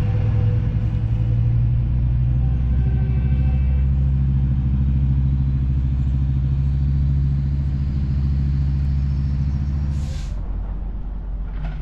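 Metrolink commuter train's diesel locomotive pulling out, a loud steady low engine drone with a faint whine slowly rising in pitch as it accelerates away. The drone drops off abruptly about ten seconds in.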